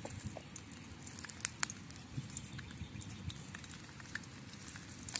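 Garlic frying in oil in a wok over a small wood fire: scattered crackles and pops, with two louder pops about a second and a half in.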